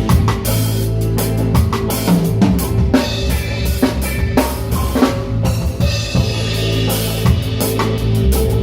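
Live reggae band playing, with the drum kit to the fore: kick and snare hits over bass and guitar.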